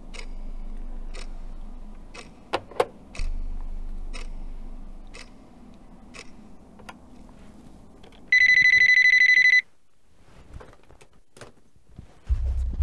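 Beige push-button landline telephone ringing: one warbling electronic ring about a second long, after a run of light clicks. Low music starts near the end.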